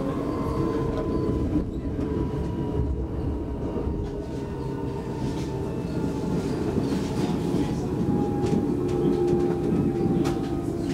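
Inside an X60 electric commuter train (Alstom Coradia Nordic) running at speed: a steady rumble of wheels on rail, with a faint whine that slowly falls in pitch and a few sharp clicks near the end.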